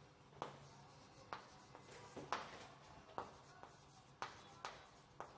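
Chalk writing on a blackboard: faint scratches and taps as the letters are written, about one sharp stroke a second.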